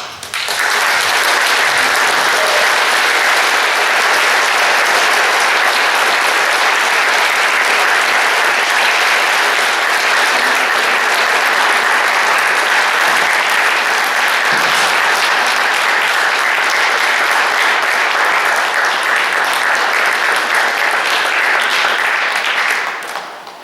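Theatre audience applauding at the end of a play: dense, steady clapping that starts abruptly and dies away near the end.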